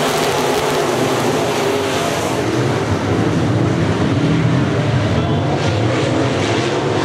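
A pack of IMCA Modified dirt-track race cars' V8 engines running at race speed: a loud, steady drone of several engine notes wavering up and down as the cars pass.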